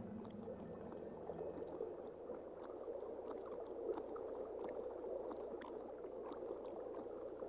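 Stream water running and gurgling steadily.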